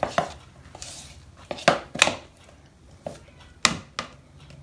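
A metal spoon knocking against a mixing bowl in sharp, irregular clacks, about six of them, while thick dough is stirred.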